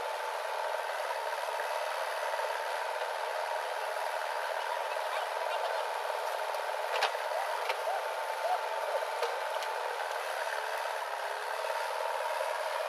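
JCB backhoe loader's diesel engine running steadily as the digging arm works, with a few sharp clicks about seven seconds in.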